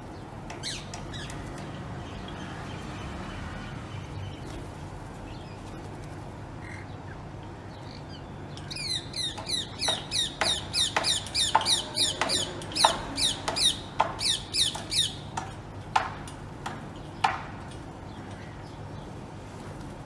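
Rose-ringed parakeet screeching: a rapid run of shrill, falling calls, about three a second for some six seconds past the middle, then two single sharp notes.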